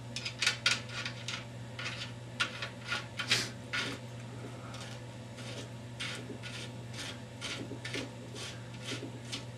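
Irregular short scrapes and clicks of a metal fitting being turned and worked off by hand from the freshly cut 14x1 mm threads on a Saiga .223 rifle's muzzle, over a faint steady hum.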